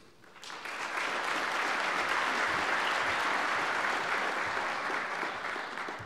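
Large audience applauding, swelling up about half a second in, holding steady, then dying away near the end.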